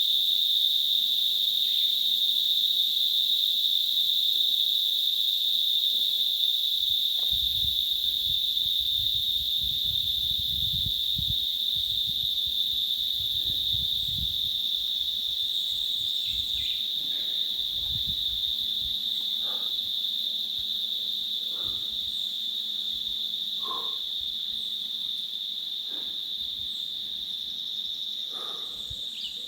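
Steady, unbroken high-pitched chorus of crickets or similar insects, fading slowly. Low rumbling comes in between about seven and fifteen seconds in.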